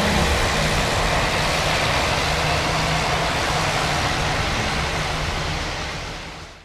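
Steady rushing outdoor noise that fades away near the end.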